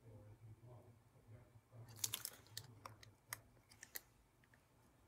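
Faint handling noises of paper die-cut pieces and a plastic bottle of wet glue being dabbed onto them: a short crackly rustle about two seconds in, then a few light clicks.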